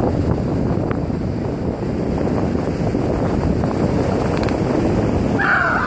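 Surf washing in the shallows, with wind buffeting the microphone as a steady rushing noise. Near the end comes a brief high-pitched voice exclamation.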